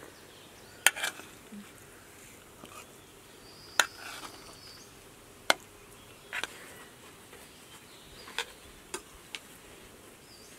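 Metal spoons clinking against a metal serving tray and ceramic plates while stuffed baked potatoes are served and eaten: about seven sharp, separate clinks, the loudest just under a second in.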